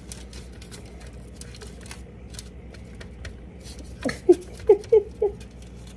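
Small faint crinkles and clicks of hands pressing a shredded chicken-and-cheese mixture into finger shapes against a foil-lined baking tray. About four seconds in, a woman's voice makes four short vocal sounds, the loudest part.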